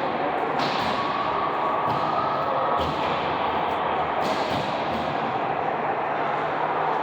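Steady din of a sports game in a large hall, broken by several sharp knocks and slaps from play.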